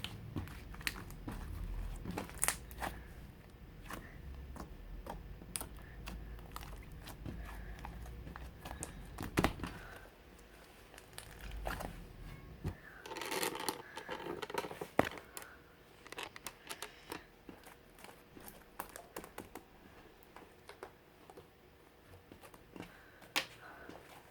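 Hands playing with orange mixed slime, making irregular sticky clicks and crackling pops as it is pressed and stretched.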